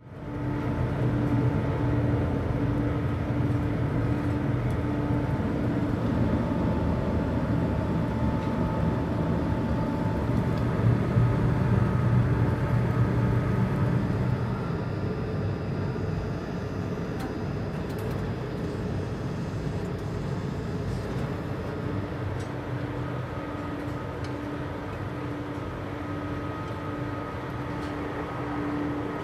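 Electric blower running steadily, forcing air into a metal-melting furnace: a continuous rushing noise with a steady hum, easing slightly about halfway through.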